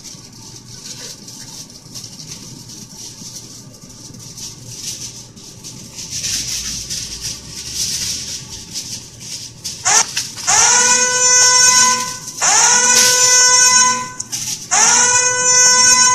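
Crinkling and rustling for several seconds, then four loud horn-like blasts. Each blast slides up in pitch at the start and is then held for one to two seconds.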